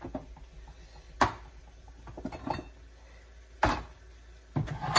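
Sharp knocks and light clatters of items being handled in a kitchen cupboard while cans of soup are fetched. The louder knocks come about a second in, near four seconds, and at the very end.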